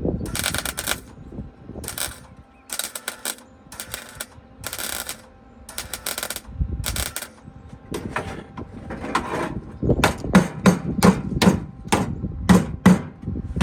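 Welder laying short tack welds on car floor-pan sheet steel: bursts of arc crackle about half a second long, starting and stopping irregularly. In the last few seconds comes a quick run of short, sharp strikes, some ringing, about three a second.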